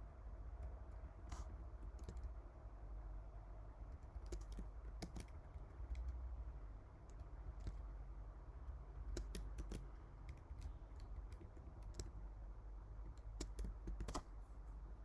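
Typing on a computer keyboard: scattered, irregular keystrokes, some in quick runs, over a steady low hum.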